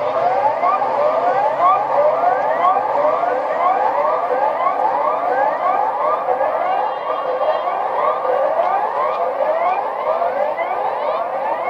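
Several sirens sounding together: a dense, unbroken layer of short rising wails, several sweeps a second, overlapping one another.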